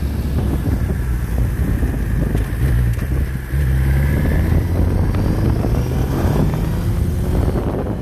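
Motorcycle engine running while riding. It dips briefly about three and a half seconds in, then runs louder.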